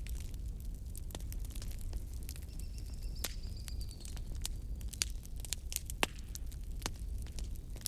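Wood fire burning in a fireplace, crackling with irregular sharp pops over a low steady rumble of the flames; the loudest pop comes about six seconds in.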